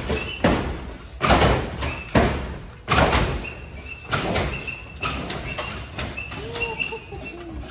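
Lowrider on hydraulic suspension hopping: a heavy thud about every second as the car comes down and is thrown back up, the hits growing weaker after about three seconds as it settles.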